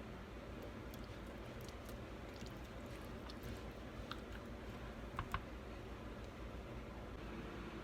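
Faint scattered light clicks and taps from handling kitchen things, over a low steady hum, with a small clink about five seconds in.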